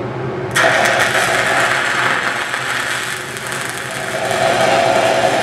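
A 6010 stick electrode's arc is struck about half a second in, then runs as a steady crackling hiss while the root pass is welded uphill on pipe. A steady low hum sits underneath.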